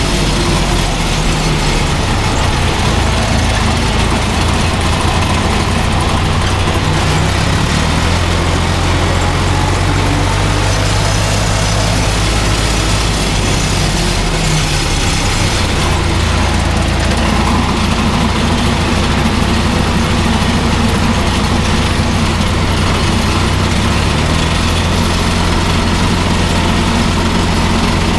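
John Deere tractor's diesel engine running steadily while driving, heard from the cab. Its speed shifts a few times: about a quarter of the way in, around halfway, and again near the end, when the pitch steps up.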